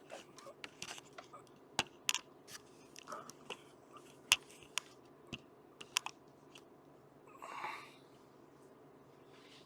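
A run of irregular light clicks and knocks, a dozen or so, with a short rustling scrape about seven and a half seconds in.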